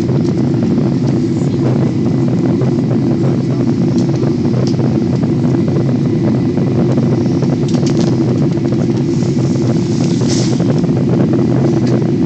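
Jet airliner cabin noise heard at a window seat: a steady, loud drone of engines and airflow in flight on the approach.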